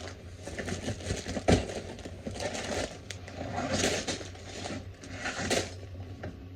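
Packaging being handled: crinkling and rustling of plastic bags and packing, in uneven bursts, with a sharp knock about a second and a half in.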